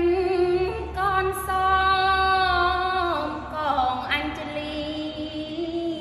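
A young woman chanting Khmer smot unaccompanied, holding long wavering notes that slide down in pitch about three seconds in and rise again later.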